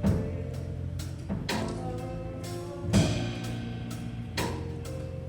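Live church band music: sustained keyboard chords held under occasional drum kit hits, the loudest strike about three seconds in.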